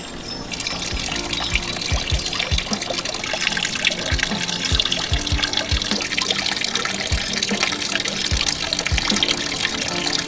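Water running from a metal pipe spout of a stone spring fountain and splashing into a shallow pool, the splashing growing louder about half a second in. Background music with a regular low beat plays underneath.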